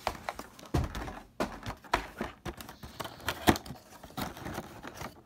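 Irregular clicks and knocks of small plastic Breyer model horses being handled and set down together on a table, mixed with handling noise from the moving phone.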